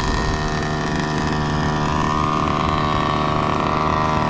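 HPI Baja 5B's 29cc two-stroke engine idling steadily, holding an even pitch with no revving.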